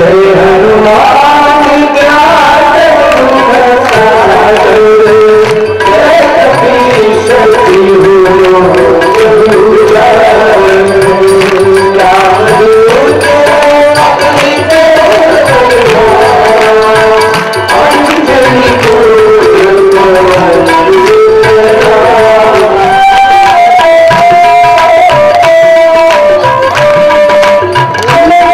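Indian devotional music: tabla drumming under a sustained melody that glides up and down.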